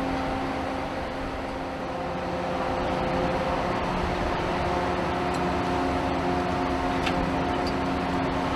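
Steady drone of a cargo ship's deck machinery while its crane lowers a vehicle, a constant hum of several unchanging tones over a noisy bed, with a faint click about seven seconds in.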